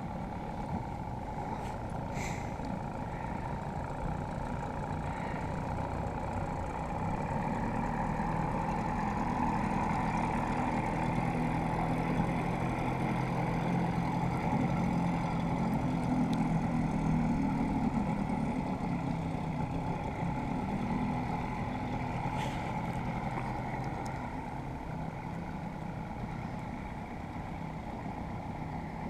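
Outboard motor running steadily as the boat moves under power. It grows louder through the middle, then eases off toward the end.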